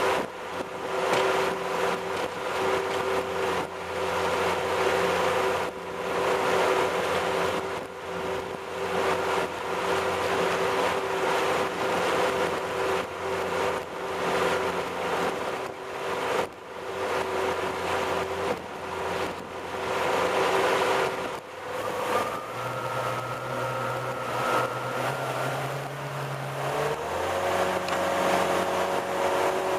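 A 350 cubic-inch V8 MerCruiser boat engine running steadily under way, mixed with the rush of the wake and wind. About two-thirds of the way through the engine note changes, and near the end it steps up in pitch as the revs rise.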